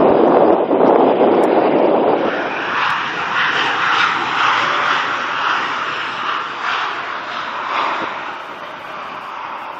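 Airliner's engines passing: a loud low rush for about two seconds, then a higher engine noise that slowly fades as the aircraft moves away.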